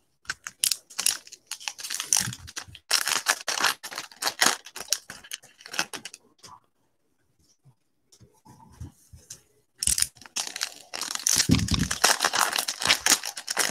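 Foil wrapper of a football trading-card pack being torn open and crinkled by gloved hands. The crackling tearing comes in two spells, the first few seconds and again from about ten seconds in, with a soft thump late on.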